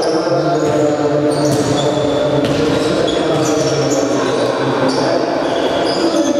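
Echoing sound of an indoor futsal game: the ball thudding on the hard court and off players' feet, with players' voices reverberating through the hall.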